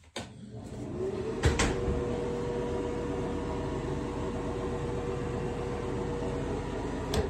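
Bathroom exhaust fan switched on with a click, spinning up over about a second into a steady hum with a held tone, then switched off with a click near the end.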